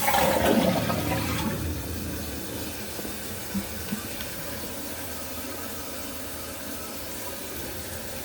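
Toilet flushing: a rush of water loudest at the start that eases off over a couple of seconds into the steady hiss of the tank refilling through the ball cock, with two small knocks a few seconds in. It is the full-tank test flush of a freshly reinstalled toilet.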